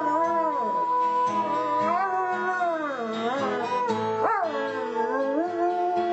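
A dog howling in long, sliding notes, with music playing along.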